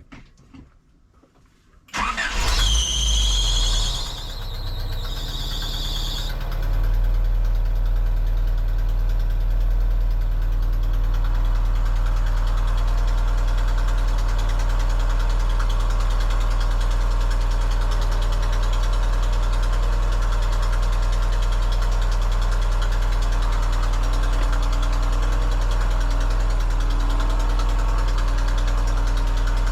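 Car engine started about two seconds in, with a high wavering squeal over its first few seconds of running, then settling into a steady idle with a deep, even hum.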